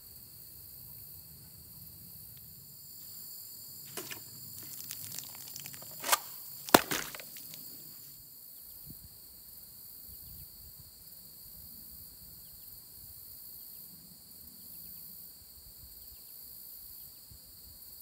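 Steady high-pitched drone of insects in the grass. A few sharp clicks and knocks come about four to seven seconds in, the loudest two near the end of that stretch.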